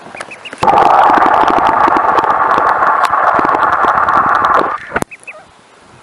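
Mallard ducks and ducklings right at the microphone: a loud, dense rapid clicking and rasping for about four seconds that starts and cuts off abruptly, followed by a couple of short duckling peeps.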